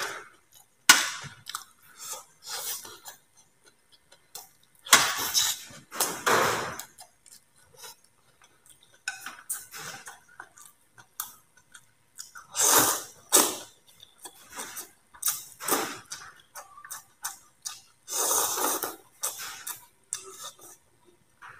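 A person eating: mouth sounds of chewing and slurping rice vermicelli, with chopsticks clinking on the plate and bowl, coming as separate short bursts every few seconds.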